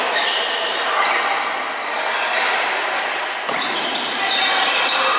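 Badminton play on several courts echoing in a large hall: sharp racket hits on shuttlecocks and short squeaks of shoes on the court mats, over a background of voices.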